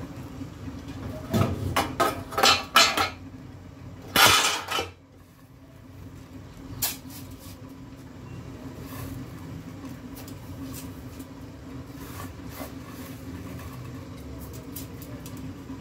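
Clatter of a metal steamer pot and a ceramic plate as dry vermicelli is crumbled by hand and dropped into the steamer basket: a run of sharp knocks and a louder rattle in the first five seconds, then light rustling and faint ticks over a steady low hum.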